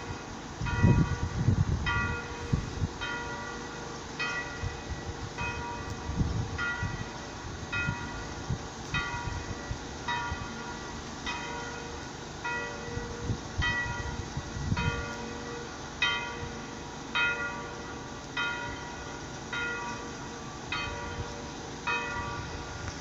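A bell struck over and over at an even pace, about three strikes every two seconds, each strike ringing with several clear tones. Gusts of wind rumble on the microphone, strongest about a second in.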